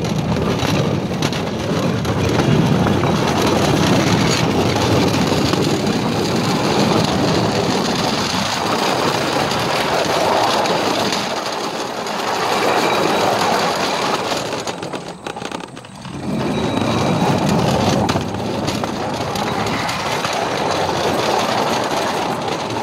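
Small 24-volt electric rail kart running along old 2 ft gauge track, its wheels rumbling and rattling on the rails in a steady noisy din. The sound dies down briefly about fifteen seconds in, then picks up again.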